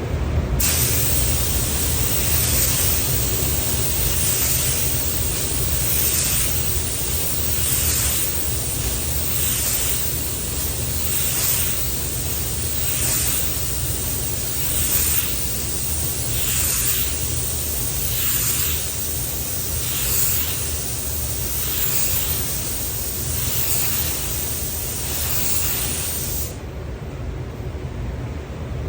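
HVLP spray gun hissing as it sprays a coat of clear over a truck door, the hiss swelling and fading about once a second with each pass of the gun. It starts about half a second in and cuts off sharply near the end.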